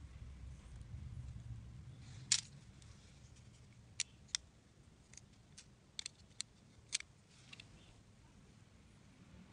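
Small scissors snipping thread and feather fibres close to a jighead: a string of short, sharp clicks, the loudest about two seconds in, then a cluster of snips between about four and seven seconds in, over faint handling rustle.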